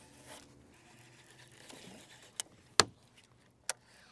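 Several sharp clicks and one loud, solid knock about three seconds in: a heavy punching weight on a flipping rig striking the side of a fiberglass bass boat.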